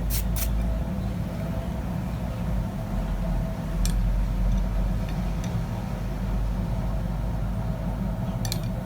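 A forge running steadily with a low rumble and a faint steady tone, with a sharp knock about four seconds in and a quick double knock near the end.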